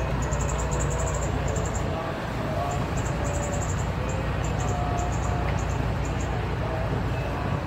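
A steady low rumble under faint voices, with quick runs of short, high-pitched chirps.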